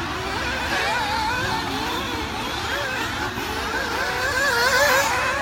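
Several nitro RC buggy engines racing together, their overlapping notes rising and falling as the cars speed up and slow down around the track.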